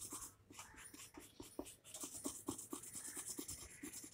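Felt-tip sketch pen colouring on paper: faint, quick scratchy back-and-forth strokes, about four a second.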